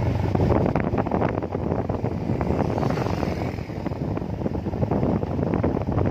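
Wind buffeting the microphone over the steady rumble of a vehicle on the move, full of short crackles.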